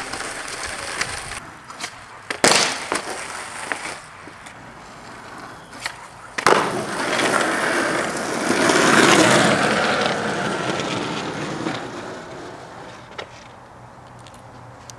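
Skateboard on concrete: two sharp board clacks, about two and a half and six and a half seconds in, then wheels rolling that build up and fade away.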